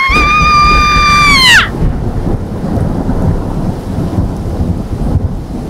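Horror-style sound effects: a high, steady scream-like wail that drops sharply in pitch and cuts off after about a second and a half, followed by a heavy rumbling like thunder that slowly fades.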